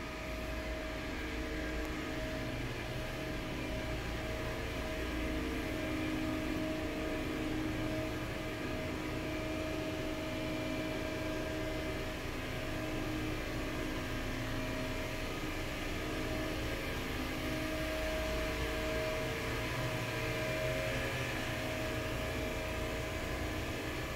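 Steady machine hum of running commercial kitchen equipment: several steady tones over a low rumble and hiss, shifting slightly in strength as the phone moves through the room.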